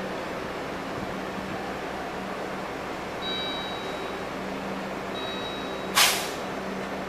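City bus's diesel engine idling with a steady hum, while two short electronic tones sound, each under a second. About six seconds in, a sharp, loud hiss of compressed air is released from the bus's pneumatics, dying away within half a second.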